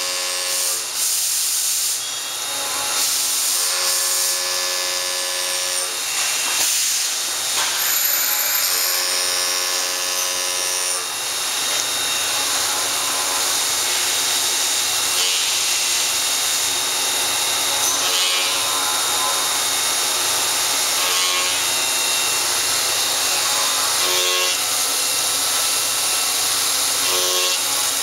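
Mighty Viper V950 CNC vertical machining center milling metal under flood coolant: a steady hiss of spindle, cutting and coolant spray, with a pitched cutting whine that comes and goes every few seconds.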